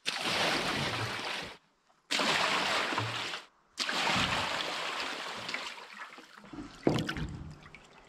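Buckets of water poured into a galvanized steel stock-tank hot tub, three pours in a row, each a sudden splashing rush; the last one fades out slowly. There is a single knock near the end.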